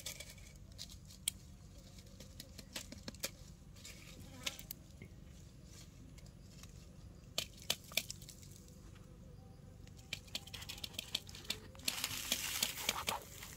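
Dry fallen leaves crackling and rustling under small movements, with scattered light clicks and a denser burst of crackling near the end.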